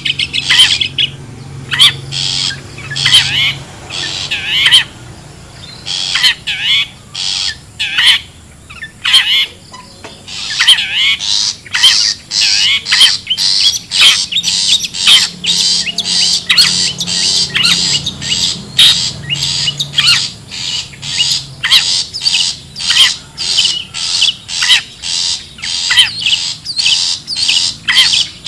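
Long-tailed shrike (cendet) giving harsh, scratchy calls in repeated series, with gaps at first and then, from about ten seconds in, a steady rapid run of roughly two to three calls a second.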